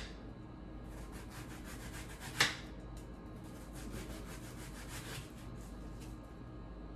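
Dry outer skin being peeled and rubbed off an onion by hand: a quick run of scratchy, papery rubbing strokes, with one sharp click about two and a half seconds in.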